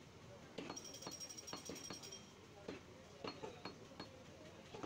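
Butcher's cleaver chopping beef into chunks on a wooden chopping block: a run of short, uneven knocks, about two or three a second.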